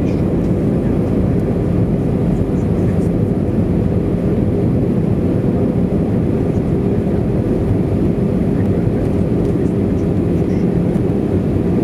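Airbus A320 cabin noise heard from a window seat over the wing: the steady rumble of the jet engines and rushing air, with a low steady drone running under it.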